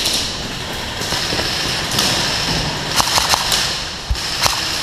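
Airsoft guns firing during a game: a quick burst of several sharp snaps about three seconds in, and a single shot near the end.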